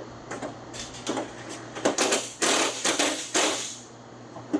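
A run of metallic clattering and scraping from old truck-door hardware being worked loose by hand: a few quick clicks, then several longer rasping scrapes about two to four seconds in.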